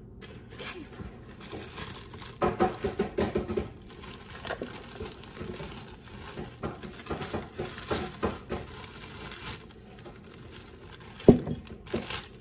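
Plastic inner bag of a boxed cake mix crinkling as it is handled and pulled at, in irregular bursts with a dense run about two and a half seconds in. Near the end comes one sharp snap, the loudest sound, as the bag is pulled open.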